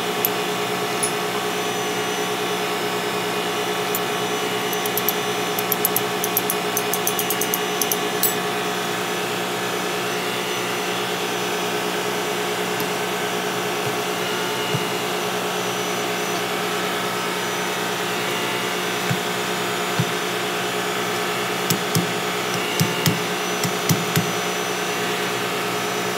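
Steady drone of running machinery throughout. Over it, light metallic clicks of a ring spanner working on the pump's cover bolts during the first several seconds, and a handful of sharp metal knocks near the end as the pump's coupling is fitted.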